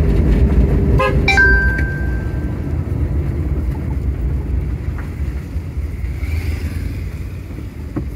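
Car driving along a country road, heard from inside: a steady low engine and road rumble that gets quieter toward the end. A brief cluster of clicks with a short tone comes about a second in.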